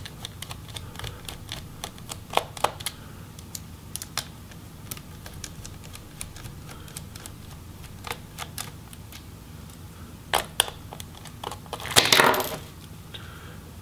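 Small Phillips screwdriver backing out the battery screws inside a Lenovo ThinkPad T470: scattered light clicks and ticks of the bit turning in the screws, with a louder clatter near the end.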